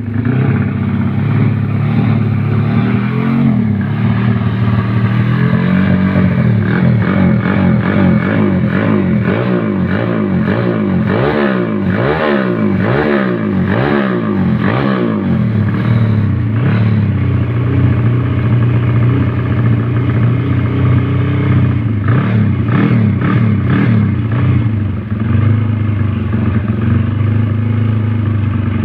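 CB 200cc motorcycle engine running as it warms up. It is revved up and down repeatedly through the middle stretch, and blipped again briefly later, then settles back to a steady idle.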